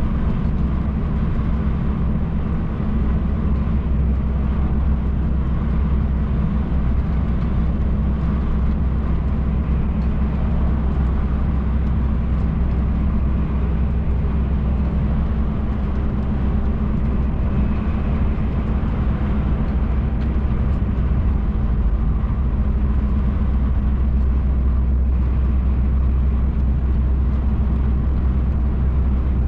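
Inside the cab of a MAN TGX truck cruising on the motorway: a steady low engine drone under road and tyre noise, a little louder from about three seconds in.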